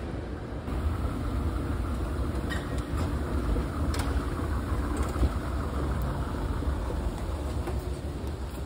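Steady low rumble of a vehicle running, with a few faint clicks.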